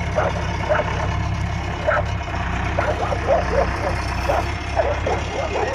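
John Deere 310G backhoe loader's diesel engine running steadily as the machine drives slowly. Short high-pitched yelps sound over it several times.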